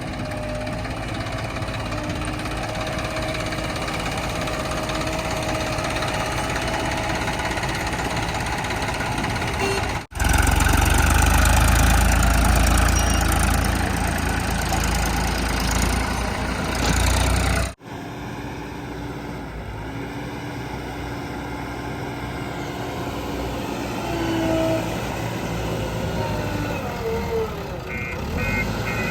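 Diesel engines of a JCB 3DX backhoe loader and a tipper truck running at work, with a louder, deeper stretch in the middle that begins and ends abruptly. A reversing alarm starts beeping near the end.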